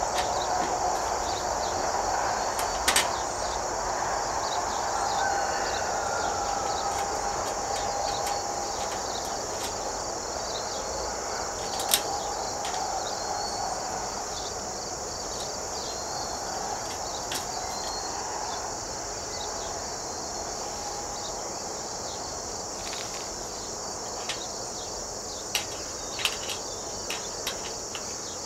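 Steady high-pitched insect chorus, with occasional sharp taps and clicks of sheet-metal nest-box panels being handled and fitted: a double tap about three seconds in, one near the middle, and a cluster of taps near the end.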